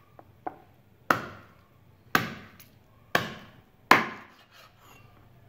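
Meat cleaver chopping raw chicken on a round wooden chopping board: two light knocks, then four heavy chops about a second apart.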